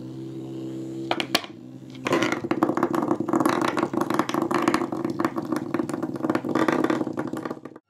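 Battery-powered motorized toy mouse (Petio Crazy Mouse) running on a wooden floor: a steady motor hum, a click about a second and a half in, then from about two seconds in a fast rattling buzz as it scoots along, cut off just before the end.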